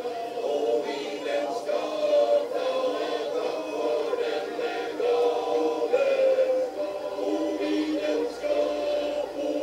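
Men's choir singing in harmony, the voices holding long chords.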